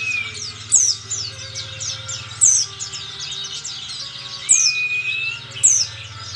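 A sogon songbird singing a fast, continuous stream of quick high chirps. Loud downward-sweeping notes come every second or two, and a rising whistle comes about four and a half seconds in. The song is filled with mimicked pleci (white-eye) phrases.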